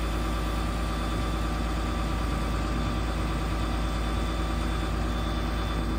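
Cummins 6.7-litre turbo diesel of a Ford F750 bucket truck running steadily at idle while it drives the hydraulics of the aerial boom.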